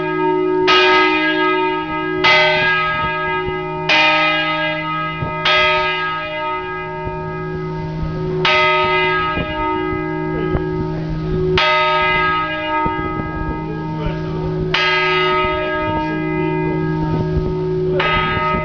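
Large bronze church bell in a campanile belfry, heard at close range, struck eight times: four strokes about a second and a half apart, then four slower ones about three seconds apart. Each stroke rings on, and a low hum carries unbroken between the strokes.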